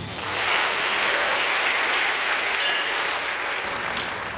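Audience applauding, the clapping swelling within the first half second, holding steady, then dying away near the end.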